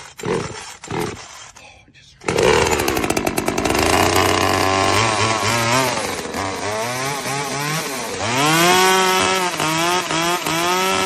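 Small two-stroke gas chainsaw cold-started: a few short bursts from pulls on the starter, then the engine catches about two seconds in and runs, revved up and down several times.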